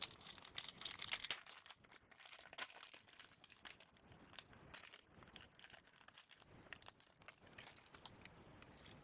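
Trading-card pack wrapper being torn open and crinkled, loudest in the first second or so and again briefly near three seconds in, then fading to faint scattered crinkles as the pack is handled.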